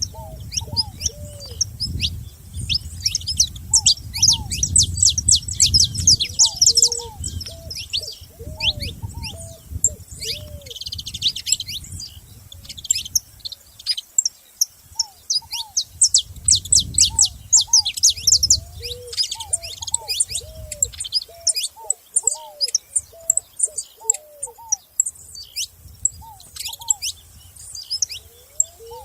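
Saffron finches chirping and calling, dense runs of quick high chirps that come in busy flurries, with lower curved bird notes repeating underneath.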